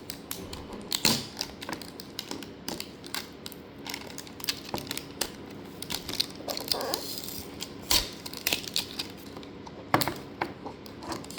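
Hands opening and handling a cube's packaging box: irregular clicks, taps and light rustling, with a few sharper knocks.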